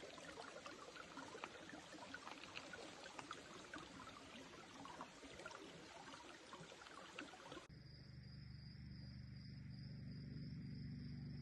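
Small stream trickling and babbling, faint. About eight seconds in it cuts off abruptly, and a steady high-pitched drone over a low hum takes over.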